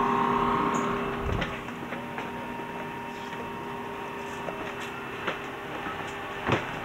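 Steady jet aircraft noise inside a KC-135 tanker's cabin, with several steady whining tones that fade out after about a second and a half. An even drone follows, broken by scattered knocks and clicks.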